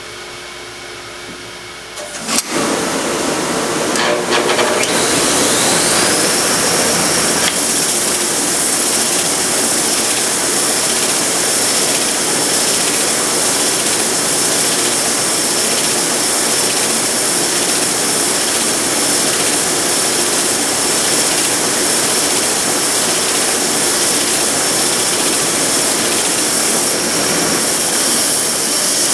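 Belt sander and its dust collection switching on about two seconds in, a high whine rising and settling to a steady pitch within a few seconds. The machines then run steadily while a wooden stool stretcher is pressed flat onto the moving belt and sanded.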